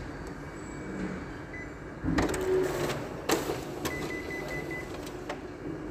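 Office photocopier running a copy job: a steady hum, then a loud whirring rush about two seconds in as the document feeder draws the original through. Several sharp clicks follow, with a thin high tone lasting about a second.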